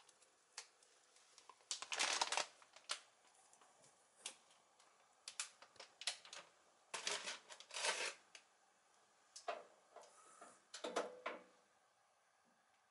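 Bag of dried bonito flakes rustling and crinkling in short, irregular bursts as handfuls are taken out and scattered into a pot of stock. The bursts are loudest about two seconds in and again around seven to eight seconds in.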